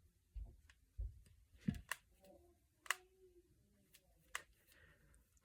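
Finger knuckles being cracked: several short, sharp pops roughly a second apart, with a few soft low thuds among them.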